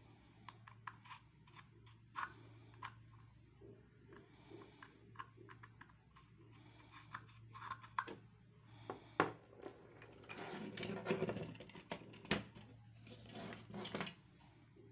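A drill bit in a small metal chuck being twisted by hand into a white plastic cap, giving scattered clicks and scrapes, with a longer stretch of scraping about ten seconds in.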